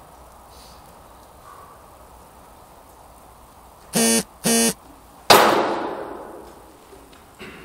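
Two short buzzing beeps about four seconds in, then a single loud weapon strike on a shield that rings and echoes through the big hall, dying away over about two seconds; a faint knock follows near the end.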